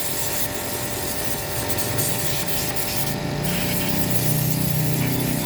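Compressed-air blow gun hissing steadily as it blows dust out of a car's engine bay, with a brief break about three seconds in. A low hum joins in over the second half.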